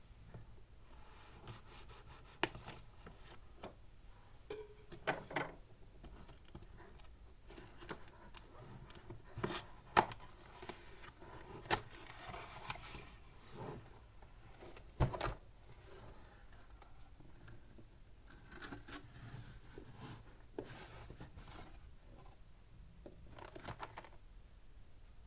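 Unboxing handling sounds of a keyboard's box and packaging: scattered clicks, knocks, scrapes and brief rustles, with sharper knocks about ten and fifteen seconds in.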